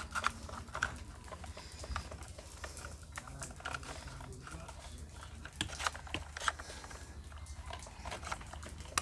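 Scattered clicks and knocks of hard plastic toy parts being handled as a wheel is pressed onto a toy excavator's axle, over a low steady hum.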